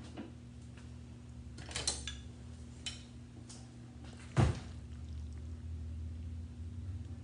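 Kitchen utensil clatter as a plastic spoon scoops stir-fry from a steel wok onto a plate: a few light clicks about two seconds in, then one loud knock a little before halfway, over a steady low hum.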